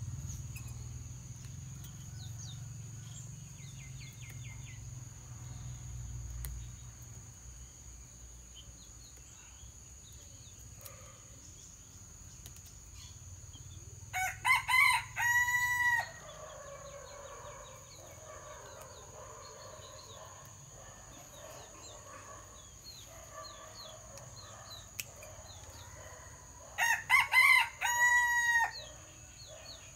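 Rooster crowing twice, once about halfway through and again near the end, each crow lasting about two seconds, over a steady high-pitched whine.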